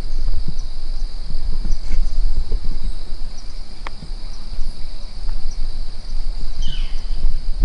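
Outdoor field ambience: a steady high insect-like drone over a loud, uneven low rumble, with a few faint ticks and a short falling call near the end.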